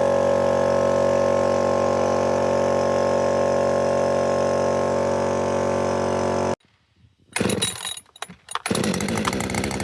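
A steady machine drone with many fixed tones cuts off suddenly about two-thirds of the way in. After a short gap and a few uneven bursts, a small engine runs with a wavering note.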